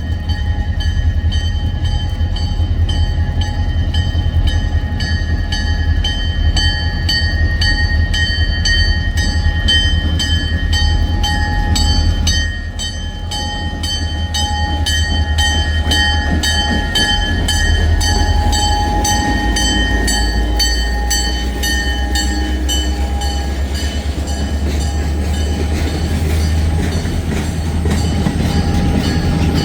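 Escanaba & Lake Superior freight train running through a grade crossing with a deep, steady drone from the locomotives and railcars. Over it, a high ringing repeats evenly about twice a second throughout, in keeping with the crossing-signal bell.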